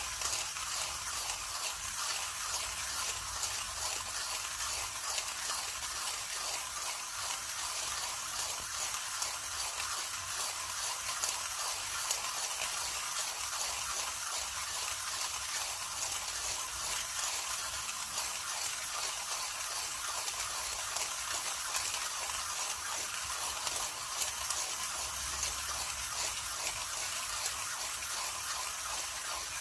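Millwright hand grinder's burrs, set fine for espresso, crushing coffee beans as the crank is turned: a steady, dense crackling grind.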